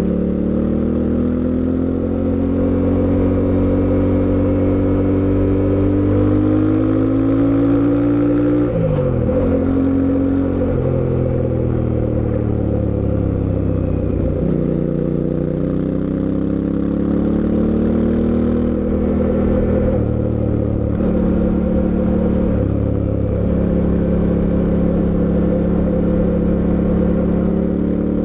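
Fantic Caballero 700 Scrambler's parallel-twin engine under way, its pitch climbing under acceleration. The pitch drops sharply at gear changes about nine seconds in, again a little later and around fourteen seconds, then climbs once more.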